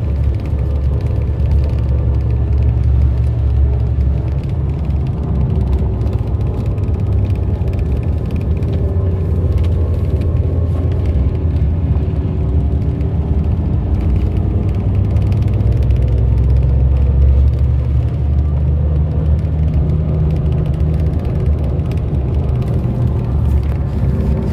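Steady low rumble of a vehicle's engine and road noise, heard from inside the cabin.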